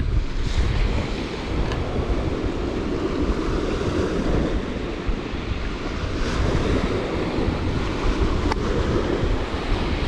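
Strong wind blowing across the microphone in a low, gusty rumble, over the wash of lake waves, with a couple of faint clicks.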